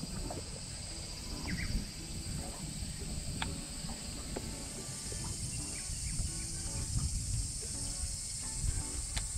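Steady high buzz of cicadas from the wooded shore, with a low uneven rumble beneath it and a couple of faint clicks.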